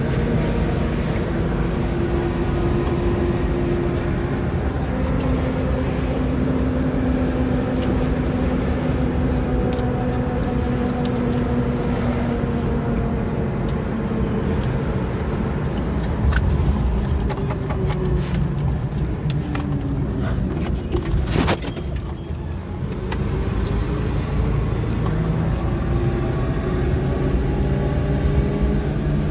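A car being driven, with the engine running over steady road noise. About two thirds through, the engine note drops and then climbs again, with one sharp knock around then.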